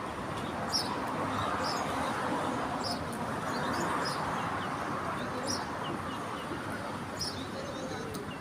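Small birds chirping in short, high calls every second or so, over a steady background noise that swells slightly midway.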